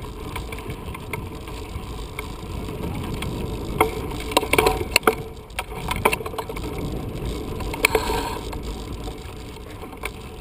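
Bicycle riding over a dirt jump track: a steady low rumble of tyres on dirt and wind, with the bike rattling and clicking over bumps between about four and eight seconds in.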